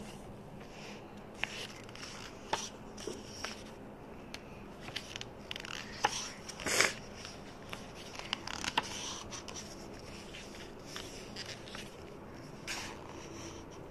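Pages of an illustrated book being handled and turned: scattered soft paper rustles and scrapes, with a louder rustle about seven seconds in.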